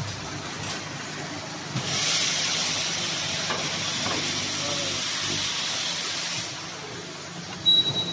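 Cutting disc making machine running, with a loud steady hiss that starts abruptly about two seconds in and fades about four and a half seconds later. A sharp mechanical knock comes near the end.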